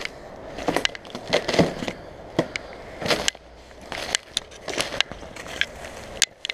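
Footsteps crunching and snapping through dry twigs, dead grass and loose debris, with irregular crackles one or two a second.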